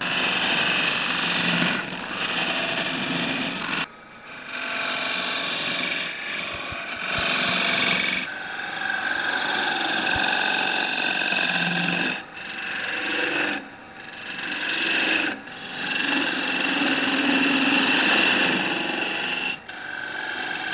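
Wood lathe turning a wooden spindle while a skew chisel and then a gouge cut into it: a steady hiss and scrape of shavings peeling off the spinning wood, broken by several short pauses.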